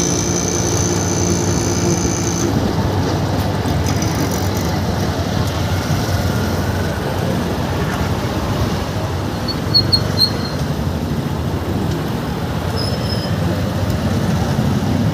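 Steady road and traffic noise heard from a moving vehicle, with a pitched engine-like hum in the first couple of seconds. A few short high chirps come about ten seconds in.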